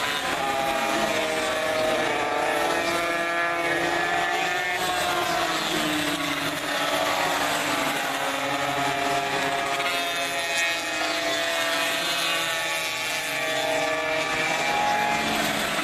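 A pack of classic Grand Prix racing motorcycles running at high revs through a corner, several engines overlapping, their pitch rising and falling with the throttle.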